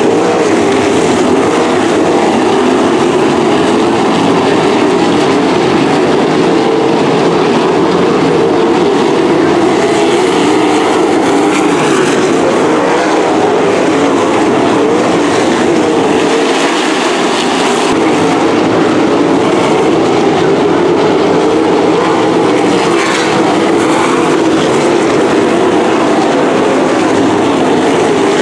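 Pack of non-winged sprint cars racing on a dirt oval, their engines running hard in a loud, steady drone that swells slightly as the cars pass.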